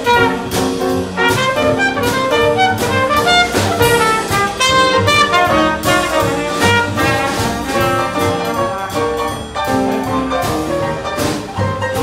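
Live small jazz band playing an instrumental passage: horns carry the melody over piano, upright bass and drums keeping a steady swing beat.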